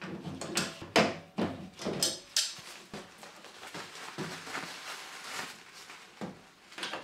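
Plastic screw connector of a washing machine's inlet hose being cracked loose with water pump pliers and then unscrewed by hand, with kitchen roll wrapped around it: a run of sharp clicks and knocks in the first two and a half seconds, the loudest about a second in, then softer handling noise and one more click near the end.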